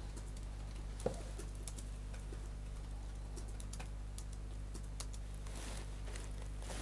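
Quiet room with a steady low hum and scattered faint clicks and taps, the clearest about a second in and a smaller one near five seconds.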